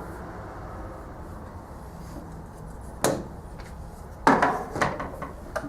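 Wooden drawer on Blum soft-close slides being worked open and shut: a sharp knock about three seconds in, then a cluster of knocks and sliding noise a little past four seconds.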